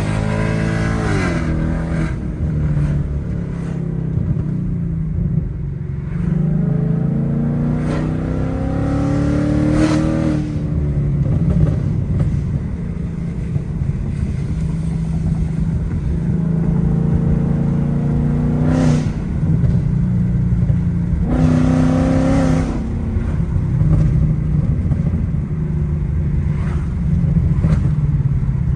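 Supercharged 5.0-litre V8 of a 2020 Ford Mustang GT with a Roush supercharger, accelerating at full throttle through the gears. The engine note climbs in pitch and breaks off at several upshifts.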